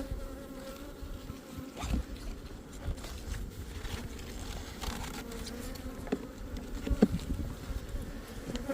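Honeybee colony buzzing steadily around an opened hive during a frame inspection, a hum with a clear pitch. A few sharp knocks break in, the loudest about seven seconds in.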